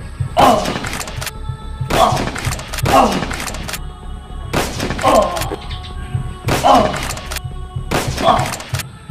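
Edited-in sniper rifle gunshot sound effects: seven shots a second or two apart, each with a falling tail, over background music with a steady beat.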